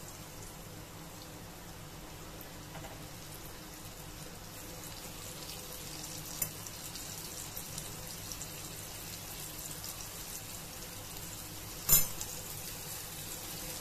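Semolina- and rice-flour-coated Bombay duck (bombil) fillets sizzling steadily in hot oil in a shallow frying pan, growing a little louder as more fillets go in. A small click comes about six seconds in and a sharper knock near the end.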